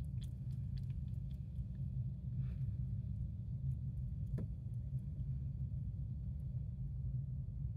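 Steady low hum with faint light taps and clicks: a cat batting and chewing a pom-pom toy on a suction-cup spring on a hard tabletop. One sharper click comes about four and a half seconds in.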